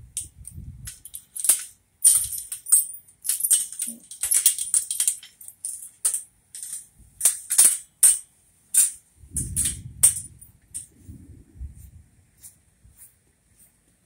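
Galvanized chain-link fence gate being worked open: the metal fork latch and gate frame clank and rattle in a quick, uneven run of sharp clicks that thins out near the end, with a brief low rumble about nine seconds in.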